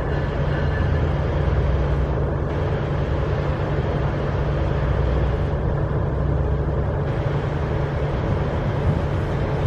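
Commuter train running with a steady low rumble and engine drone.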